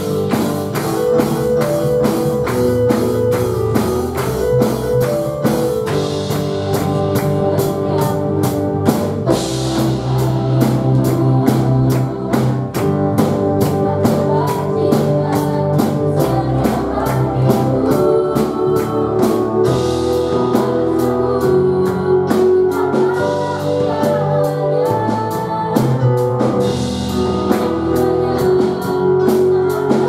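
A live worship band plays an Indonesian praise song. A drum kit keeps a steady beat under keyboard chords and bass guitar, and a girl sings lead through a microphone.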